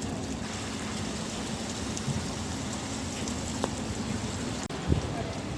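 Steady rain falling, with a short dropout and a dull thump near the end.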